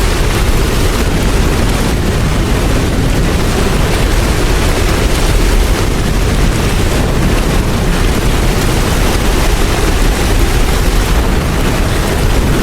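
Heavy hailstorm: a loud, steady roar of hail and wind, a dense hiss over a deep rumble, with no letup.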